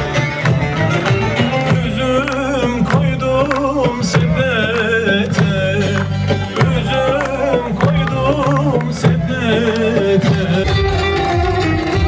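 A Turkish folk song (türkü) playing, sung with instrumental accompaniment, while a crowd claps along in time.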